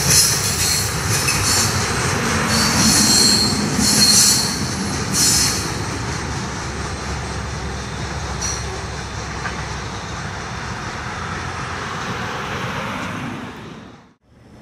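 Freight train of tank cars rolling past, its steel wheels squealing against the rails in shrill bursts over the first few seconds. A steady rolling rumble follows and fades out near the end.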